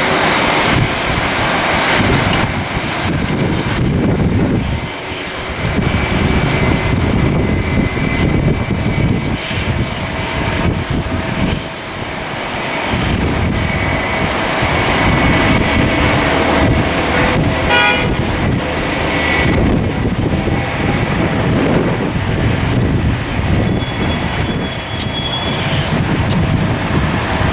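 Jet airliner engines running with a steady whine, under heavy gusty wind buffeting the microphone.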